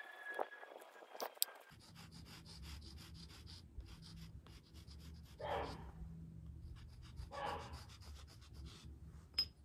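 An airplane flying over as a faint, slowly falling whine for the first second and a half, then chalk scraping in short strokes on concrete, with two breathy puffs and a short, sharp sneeze near the end.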